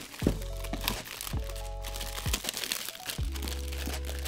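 Clear plastic bag and white protective wrap crinkling and rustling as they are pulled open by hand, over background music with steady bass notes.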